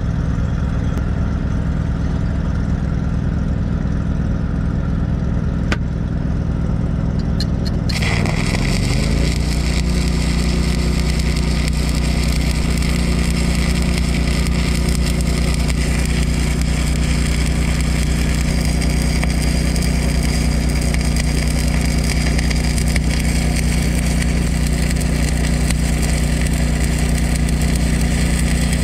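An engine runs steadily; about eight seconds in, a stick-welding arc on a 1/8 inch rod strikes and keeps up a steady crackling hiss as a pass is laid along the top edge of a repaired trailer axle weld. The engine note shifts as the arc takes load.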